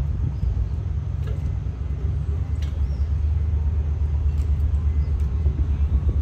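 Steady low rumble of engine machinery running, with a few faint high chirps over it.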